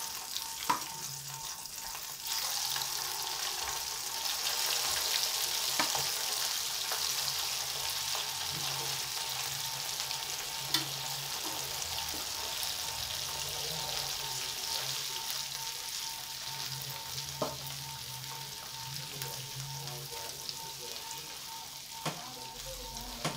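Batter-coated chicken pieces deep-frying in hot oil in a wok: a steady bubbling sizzle that grows louder about two seconds in as more pieces go into the oil. A few light clicks come from a spoon against the pan.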